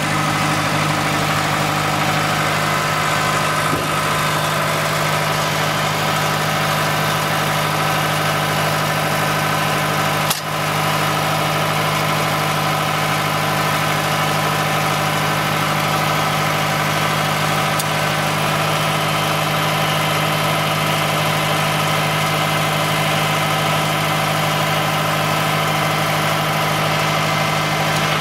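Ford 5610 tractor's four-cylinder diesel engine running steadily at constant speed, with one brief click about ten seconds in.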